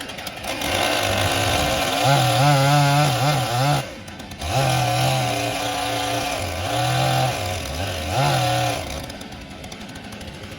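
TimberKing 1400 portable band sawmill running as its band blade cuts through a maple log, the engine's pitch wavering under load. The sound drops out briefly about four seconds in and falls away near nine seconds.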